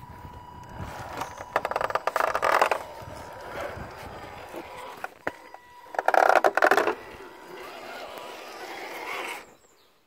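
Axial Deadbolt 1/10-scale RC crawler climbing rock. Its electric motor and drivetrain give a faint steady whine, broken twice, about a second and a half in and again about six seconds in, by loud crackling as the tyres grind and scrabble on the rock. The sound dies away near the end.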